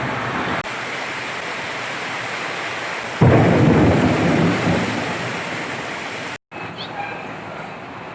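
Heavy rain pouring steadily, with a loud clap of thunder about three seconds in that rumbles and fades away over a couple of seconds.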